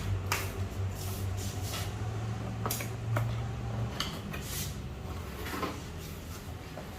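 Scattered knocks, clicks and rustles of packaging being handled and opened, over a low steady hum that fades about four seconds in.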